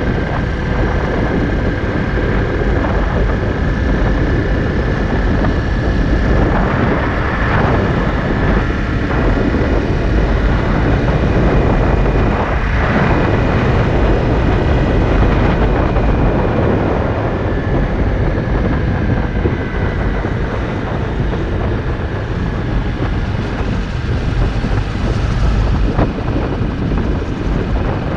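Honda CRF250L single-cylinder engine running at a steady road cruise, heard under heavy wind rushing over the microphone.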